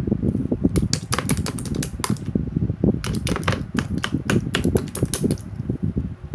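Rapid, irregular clicking and tapping, several clicks a second, over a low rumble.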